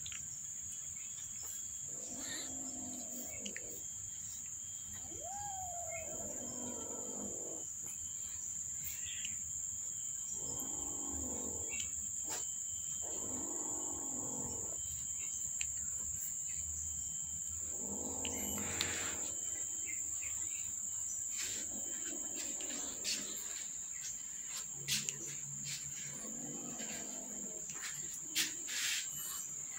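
Kittens and cats mewing now and then, about eight short calls spread out. Under them runs a steady high insect trill, like a cricket, and a few light ticks come near the end.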